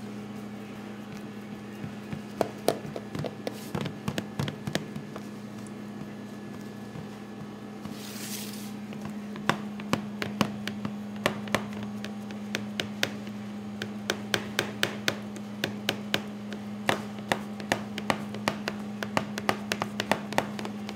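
Fingertips dimpling oiled focaccia dough in a metal baking tray: a few scattered taps, then from about nine seconds in a fast run of sharp taps, about three a second, as the fingers press through to the pan. A steady low hum runs underneath.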